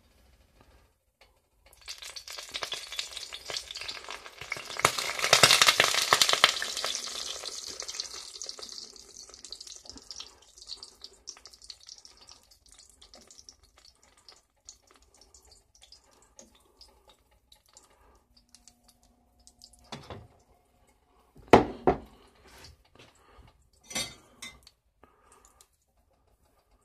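Liquid powdered-egg mixture hitting a hot cast iron skillet: a sizzle starts about two seconds in, is loudest a few seconds later, then fades to a faint frying hiss. Near the end a few sharp scrapes and knocks as a metal spatula works against the pan.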